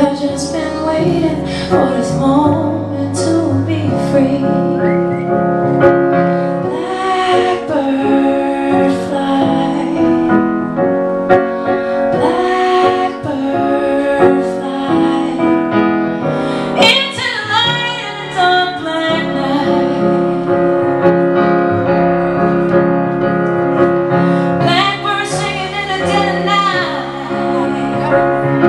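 A woman singing a slow song with piano accompaniment, a live performance heard in the room, her voice bending and sliding over held piano chords.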